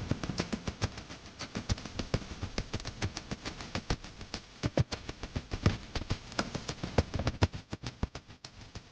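Wood fire crackling, with many irregular sharp snaps and pops several times a second that thin out and fade near the end.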